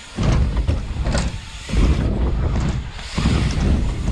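BMX bikes riding concrete and wooden ramps: tyre rolling noise with heavy rumbling gusts of wind on the camera microphone, coming in three surges, plus a few light clicks.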